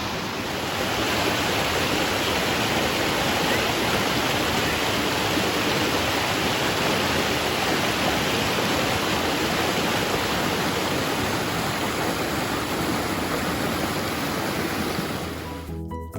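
Steady rushing of a small waterfall. It cuts off abruptly near the end as music with steady notes begins.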